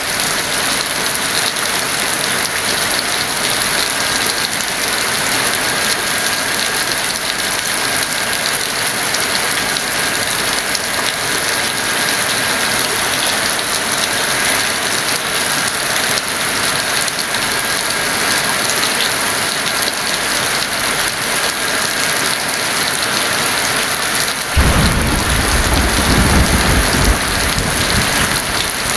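Heavy rain falling steadily, with a low rumble of thunder breaking in suddenly near the end and rolling on for a few seconds.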